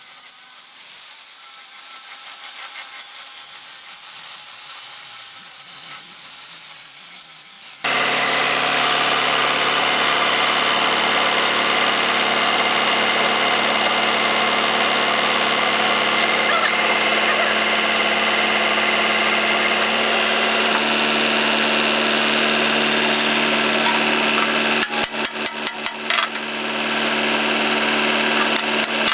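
Workshop machinery: a high hissing sound for the first several seconds, then an abrupt switch to a steady motor running with several constant tones. The tones shift slightly about two-thirds through. A quick stuttering run of clicks comes near the end.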